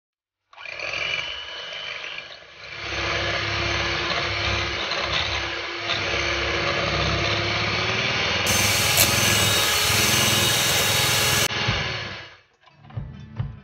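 Electric hand mixer running, its beaters whipping cream in a glass bowl; it switches on about half a second in, gets louder after about two and a half seconds, and stops about a second before the end, followed by a few light knocks.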